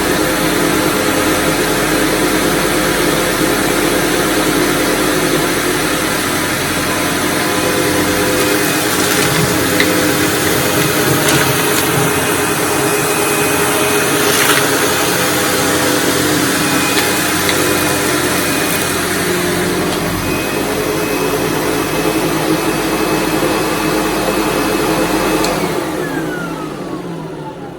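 SEBO Automatic X4 upright vacuum cleaner running steadily over carpet, picking up scattered dirt, with a few sharp ticks in the middle of the pass. Near the end it is switched off and its motor whine falls as it spins down.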